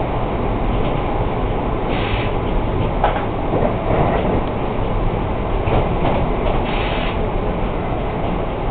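Steady rumble of an NJ Transit Multilevel coach heard from inside, running at speed with wheels on the rails. Short higher-pitched hisses come about two and seven seconds in, with a click about three seconds in.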